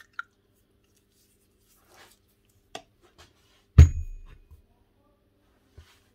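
Metal parts and tools handled on a workbench during reassembly of a rotary hammer: a few light clicks and taps, and one loud knock with a short metallic ring a little past the middle.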